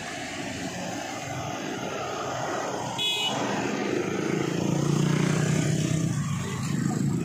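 Street traffic: small motorcycles and a van passing close by, the motorcycle engines growing louder about halfway through. A brief high-pitched tone sounds about three seconds in.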